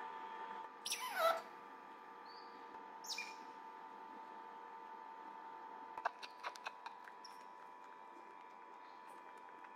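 Otter pup squeaking: a loud, high squeak that slides steeply down in pitch about a second in, then a shorter falling squeak about three seconds in. A quick run of sharp little clicks follows around six seconds, over a faint steady whine.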